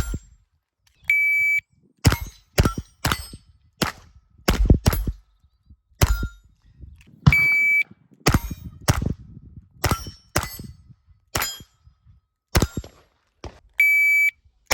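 Shot timer beeping three times to start runs, each beep followed by a quick string of .22 rimfire shots from a semi-auto AR15-22 rifle, about six to seven shots per run, with steel targets ringing on hits.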